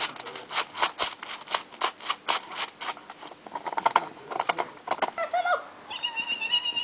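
Husky licking and crunching at the ice of a frozen puddle: a run of crisp clicks and crackles, about three or four a second. Near the end a few short high-pitched tones take over.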